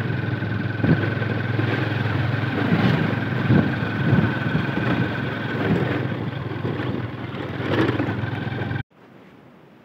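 Motorcycle engine running steadily while riding slowly along a rough lane, with occasional knocks and rattles from the bike over bumps. The sound cuts off abruptly near the end, leaving faint quiet outdoor ambience.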